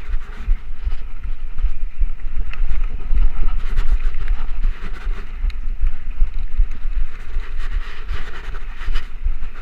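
2013 Trek Rumblefish Pro mountain bike ridden fast down dirt singletrack, with heavy wind buffeting on the chest-mounted camera's microphone. Over the steady low rumble come tyre noise and frequent short rattles and clicks of the bike over bumps.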